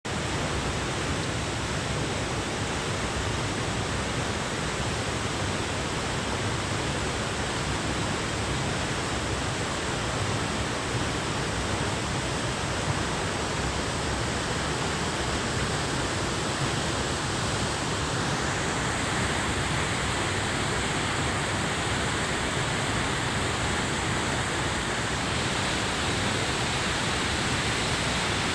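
Steady rushing of falling water from a waterfall, with no break, its higher hiss growing a little stronger about two-thirds of the way through.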